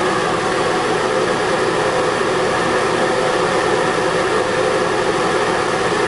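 Inline ventilation fan running steadily, pulling air through galvanized and flexible ductwork. It makes a constant rush of air with a few steady hum tones, not whisper quiet.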